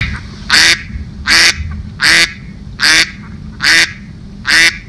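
Duck quacking over and over: six evenly spaced quacks a little under a second apart, each short.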